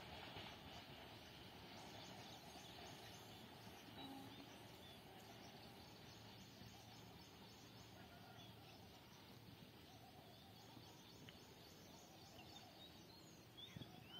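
Near silence: faint ambient noise with a few faint bird calls. The last of a passing train's noise dies away in the first second or two.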